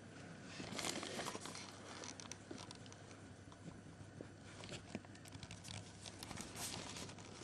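Faint rustling and crinkling, with scattered small clicks, from a mother cat and her newborn kitten stirring in the nest bedding just after the birth; the rustling picks up about a second in and again near the end.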